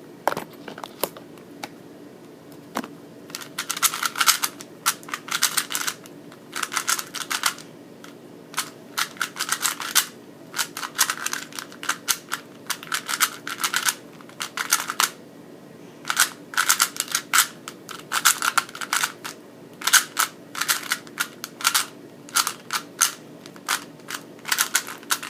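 Rubik's Cube being turned fast during a timed solve: rapid bursts of plastic clicking and clacking from the layers, in runs of a second or two with short pauses between them.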